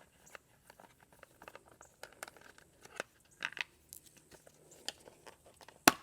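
Plastic covers being worked loose from a Honda Grom motorcycle by hand: scattered light clicks and crackles, with one sharp click near the end.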